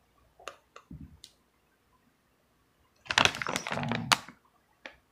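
Handling of fruit and packaging on a countertop: a few light clicks and knocks, then about a second of crinkling plastic packaging around three seconds in, with another click near the end.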